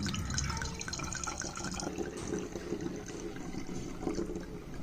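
Water running and splashing, an uneven stream with small spattering sounds.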